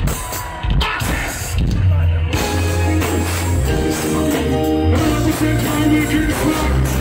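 Live concert band playing a slow R&B passage without lead vocals: steady bass under held chords, thin for the first two seconds and then filling out.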